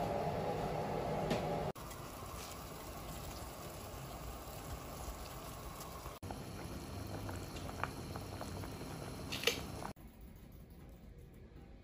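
Kitchen sounds in short cuts: a steady rushing noise for the first couple of seconds, then a pot of water simmering around dry spaghetti, with a few light clicks and one sharp clink near the end, then quiet room tone.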